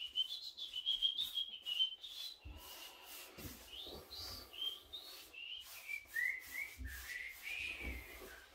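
A man whistling a wandering tune to himself, one note after another, with the soft rubbing of a paintbrush stroking paint onto wooden door trim underneath.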